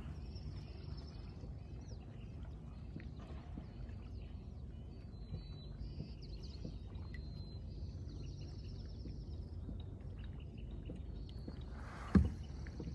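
Outdoor ambience by the water: a steady low rumble with faint high bird trills and chirps on and off, and one sharp knock near the end.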